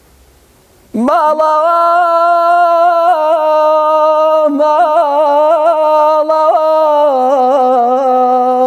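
A man's voice singing unaccompanied in Kurdish style. About a second in, it comes in on one long held note decorated with quick trills and wavers, and it slides lower near the end.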